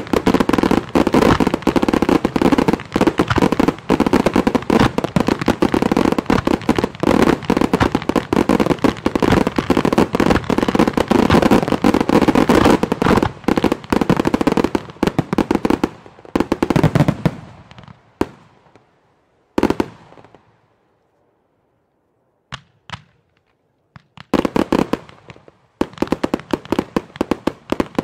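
Professional display fireworks in a closing barrage: a dense, continuous run of shell bursts and crackle for about seventeen seconds. It then dies away to near silence broken by a few single bangs, and a new rapid salvo starts about four seconds before the end.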